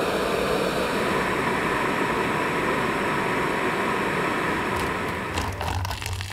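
Jetboil gas cooker's propane burner running with a steady hiss. About five seconds in the hiss stops, and near the end hot water is poured from the cooking cup into a foil freeze-dried meal pouch.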